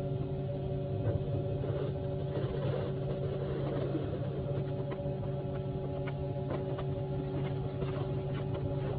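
Septic pump truck's engine and vacuum pump running steadily: a constant drone with a few light clicks and knocks over it.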